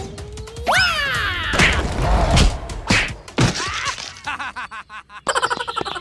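Edited-in cartoon sound effects: a pitched cry that rises and then falls away about a second in, with several thumps. From about four seconds in, a fast ratchet-like run of clicks.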